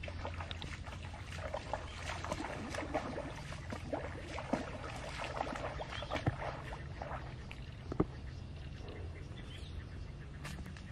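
Grass and brush rustling and crackling underfoot and by hand, with a couple of sharper snaps, over a steady low rumble.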